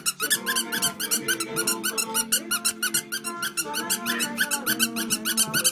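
Music playing, with a fast, even pulse of high ticks over held melody notes.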